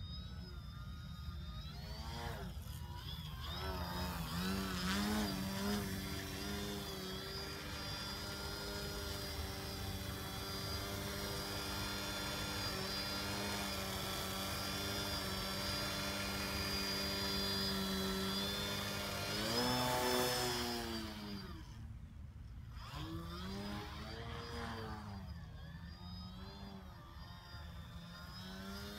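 Small RC aerobatic plane's electric motor and propeller running, a steady buzzing tone held for a long stretch while the plane hangs nose-up on its prop. Near the two-thirds mark the pitch climbs to its loudest, then nearly cuts off for a moment, and comes back rising and falling as the throttle is worked.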